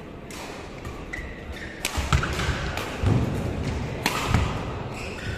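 Badminton rally: sharp racket hits on the shuttlecock, the two loudest about two seconds apart, with short shoe squeaks and thuds of footwork on the court.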